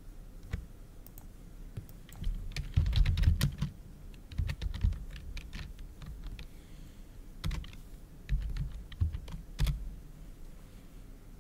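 Typing on a computer keyboard: irregular runs of keystrokes in two bursts with a pause between.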